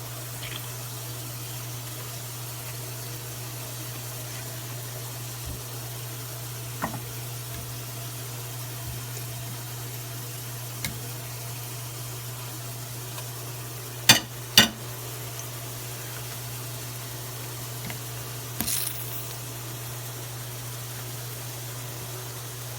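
A steady low hum, with a few faint clicks and two sharp knocks close together about fourteen seconds in, then a brief rustle near the end.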